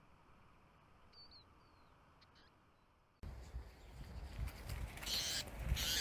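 Faint outdoor background with a few brief, high chirps from a small songbird about a second in. About three seconds in it cuts abruptly to a much louder close recording of rustling and handling noise with bursts of high hiss.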